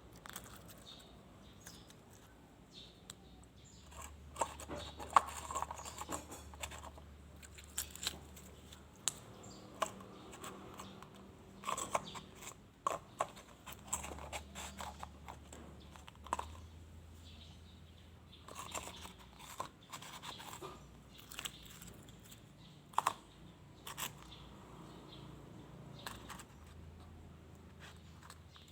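Slime being squeezed and stretched by hand, giving irregular soft crackles and pops, over a faint low hum that comes and goes.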